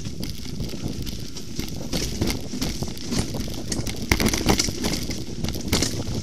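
Mountain bike rattling and clattering down a rough dirt trail: a steady rumble of tyres and shaking, broken by many sharp knocks from bumps. The knocks come thickest a little after four seconds in.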